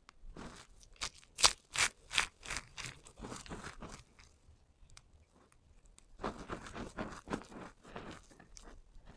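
Dry soap crushed by hand. A quick series of sharp cracking snaps comes about a second in as a bar breaks apart, then crunching and crumbling as hands squeeze dry soap shavings. After a short lull there is another stretch of crunching near the end.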